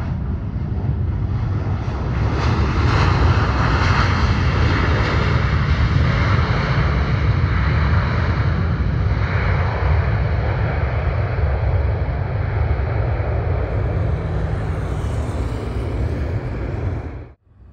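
Jet engines of a Boeing 737 rolling along the runway: a loud, steady jet noise with a deep rumble and a faint high whine, cutting off suddenly near the end.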